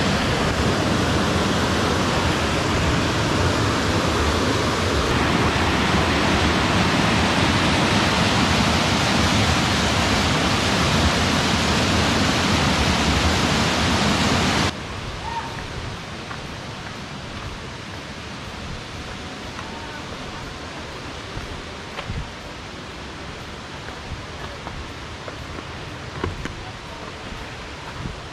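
Waterfall rushing: a loud, steady wash of falling water. About halfway through it cuts off suddenly to a much quieter background with faint rustling and a few light clicks.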